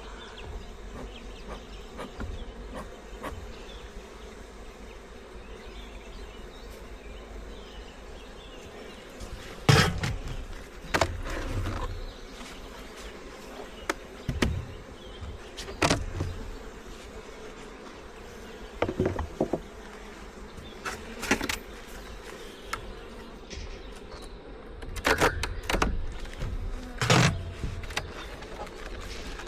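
Honey bees buzzing steadily around an open hive, with scattered sharp knocks and clatters from about ten seconds in.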